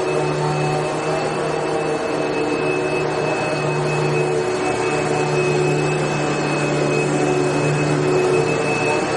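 Vacuum cleaner running steadily, a continuous rushing hiss with a constant high whine and a low motor hum.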